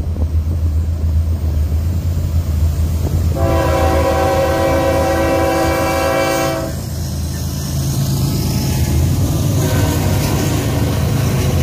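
Diesel freight train with BNSF locomotives leading, approaching and passing beneath: a steady low engine rumble, with one long blast of the locomotive's air horn, a chord of several notes held for about three seconds, starting about three and a half seconds in.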